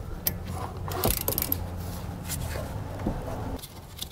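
Hand ratchet with a 14 mm socket loosening rear brake caliper bolts: scattered clicks and scrapes of metal on metal, busiest about a second in. A steady low hum runs underneath and stops about three and a half seconds in.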